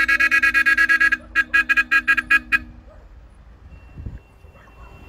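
Car horn sounded in a fast pulsing string of toots, then several separate short toots, stopping about two and a half seconds in.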